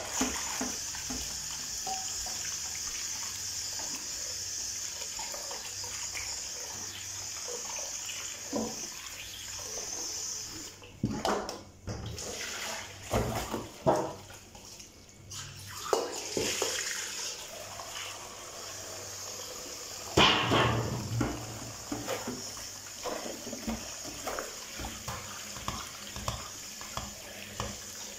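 Kitchen tap running into a stainless steel bowl as hands swish and rinse shredded dried fumbwa leaves. About eleven seconds in, the steady running stops and gives way to uneven splashing and knocks of the metal bowl as the washing water is poured off into the sink. The loudest splash comes a little past twenty seconds, and water then runs and splashes again during the rinse.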